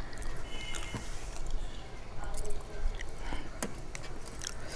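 Close-miked eating sounds of soft khichdi eaten by hand: wet chewing and small mouth clicks at irregular moments, with fingers scraping food off a metal plate.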